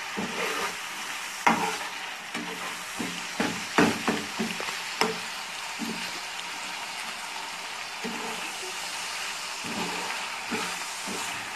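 Minced meat and garlic sizzling steadily in hot oil in a frying pan as the mince is browned. A metal spatula scrapes and clacks against the pan while stirring, more often in the first half.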